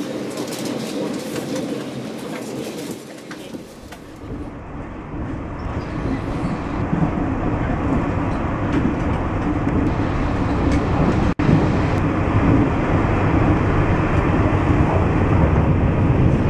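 Passenger train running, heard from inside the carriage: steady rumbling of the wheels on the track. It is hissier for the first few seconds, then settles into a heavier low rumble, with a momentary break about eleven seconds in.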